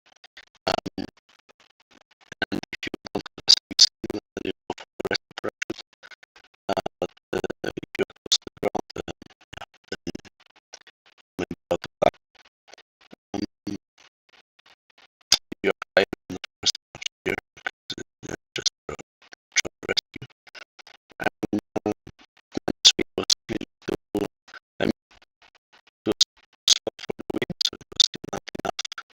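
Instrumental music made of quick, short plucked and scratchy strokes, in phrases broken by brief pauses.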